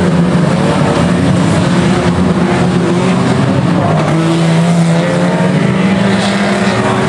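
Several banger-racing cars' engines revving hard as they race round the oval, a loud continuous engine din whose pitch rises and falls as the cars accelerate and lift off.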